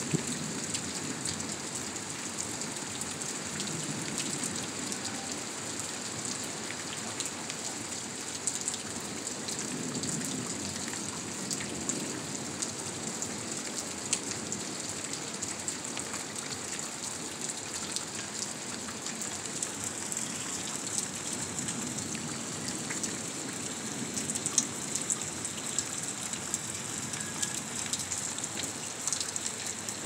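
Rain from a thunderstorm falling steadily, with many individual drops ticking sharply close by.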